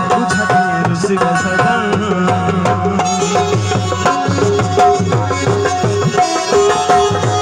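Instrumental interlude of live South Asian folk music: hand drums playing a steady rhythm, their bass strokes sliding in pitch, under harmonium and keyboard holding long notes.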